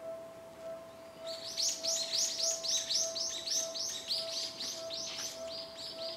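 Railway level-crossing alarm ringing in a steady pulse of one tone, a little under two strikes a second. From about a second in, a bird chirps rapidly in high, falling notes over it, louder than the alarm.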